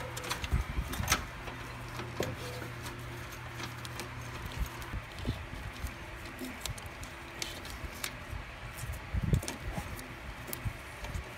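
Hands handling a bundle of wires and their connectors in a wiring harness, with scattered small clicks, knocks and rustles, over a steady low hum.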